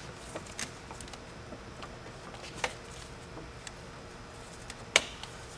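Light clicks and knocks of a fuel rail's injectors being worked down into the intake manifold of a 4.2-litre V8, ending about five seconds in with one sharp snap as the last injectors pop into place.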